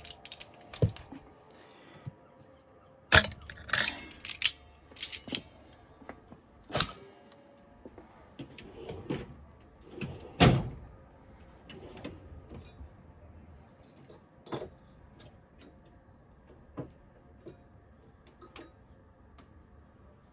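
Metal hand tools clinking and knocking as they are handled during engine reassembly: irregular sharp metallic clinks, a few in quick clusters, the loudest about three seconds and about ten seconds in.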